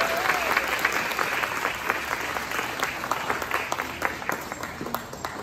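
Audience applauding, a dense patter of many hands clapping that gradually dies away. The last notes of the dance music fade out at the very start.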